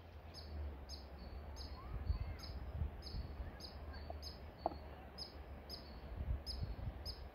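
High, short chirps repeating evenly about twice a second, over a low rumble of wind on the microphone.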